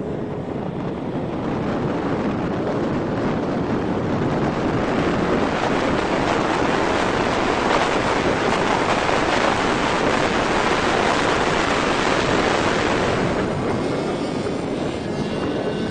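Wind rushing over the microphone with road and engine noise at highway speed, swelling to a loud rush through most of the middle and easing near the end, when a faint engine whine shows through again.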